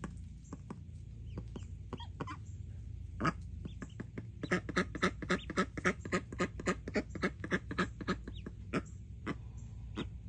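Ducklings peeping: short, sharp calls, a few at first, then a quick run of about four or five a second through the middle, then scattered calls again.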